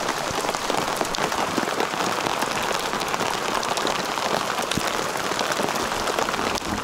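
Hail and rain falling on an inflatable boat and the lake surface: a dense, steady patter of many small hits.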